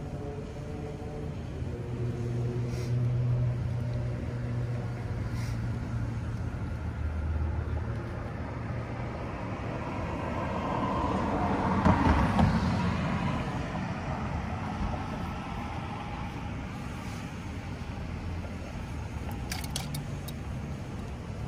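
Street traffic: a low car-engine hum, then a car driving past with its tyre and engine noise swelling to a peak about halfway through and fading away.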